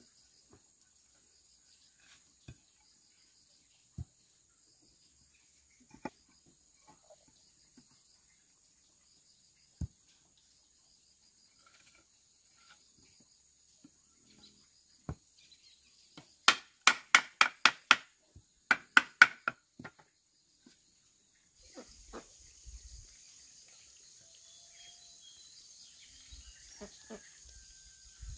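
Scattered single knocks and taps over a steady high insect drone. About halfway through comes a quick run of about a dozen sharp strikes in two groups, roughly seven a second.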